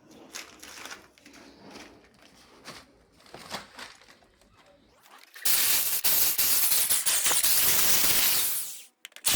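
Faint clicks and knocks of handling for the first half, then a power drill runs at full speed for about three and a half seconds, cuts off suddenly, and starts up again near the end.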